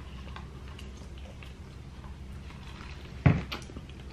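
Faint mouth sounds of eating chicken wings, then one sharp knock about three seconds in, with a smaller one right after: a plastic drink tumbler set down on the table.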